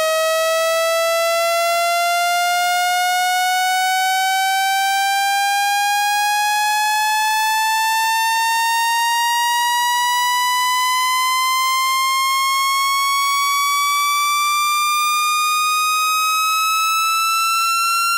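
Synthetic water-eject tone meant to shake trapped water out of a phone speaker: one steady, buzzy electronic tone sliding slowly and evenly upward in pitch, rising about an octave, at constant loudness.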